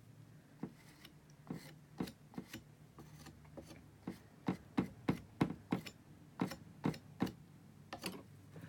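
Metal palette knife tapping and dabbing on a paint-covered stretched canvas: a run of irregular sharp taps, thickest in the middle.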